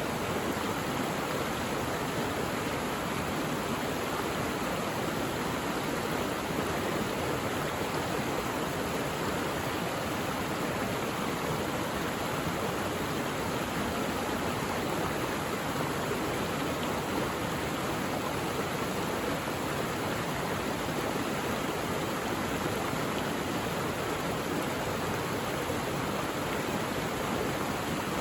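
Mountain valley stream flowing steadily, a constant even rush of water.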